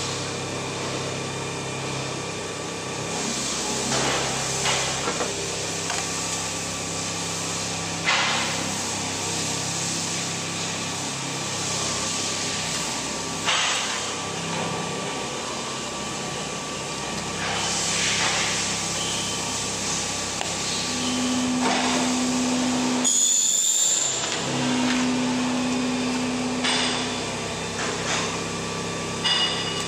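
Workshop clatter at an idle slitting rewinder: knocks and rattles of paper cores and a roll shaft being handled over a steady background hum. A motor hums twice for about two seconds near the end.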